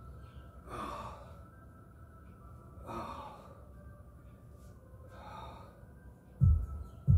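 A man's heavy breaths, three exhalations a couple of seconds apart, while he works out with dumbbells. Two loud low thumps come in near the end.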